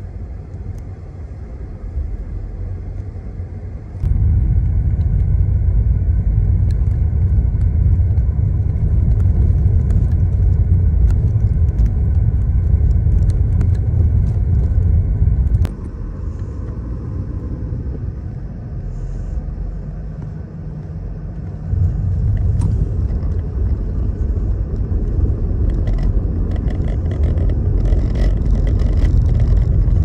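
City street ambience: a steady low rumble of passing car traffic. The level jumps up suddenly about four seconds in, drops abruptly around halfway, and rises again about two-thirds of the way through.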